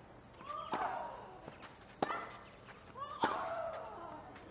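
Tennis rally: a ball struck by rackets three times, about a second and a quarter apart, each hit with a short grunt from the player.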